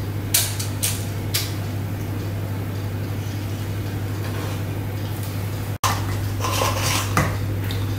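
A metal spoon clinking and scraping against a stainless steel mixing bowl while scooping sticky oat mixture into paper cupcake cases, with three sharp clicks about half a second apart near the start. A steady low hum runs underneath, broken by a momentary dropout about six seconds in.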